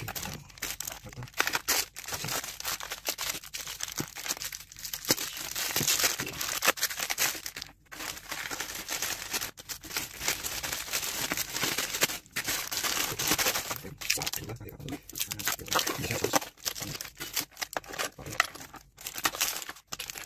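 A thin plastic bag crinkling and crumpling as it is pulled off a refrigerant can and balled up in the hands, with irregular crackling and a few short breaks.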